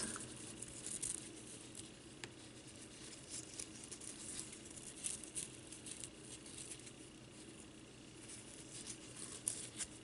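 Faint rustling and crinkling of gold mesh ribbon being wrapped by hand around a small ring-shaped nest form, with a few soft scattered ticks.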